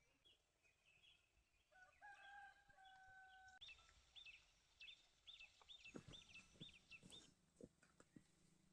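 A rooster crowing faintly, one held call, followed by a small bird's quick repeated chirps, about nine in a row. A few soft knocks come near the end.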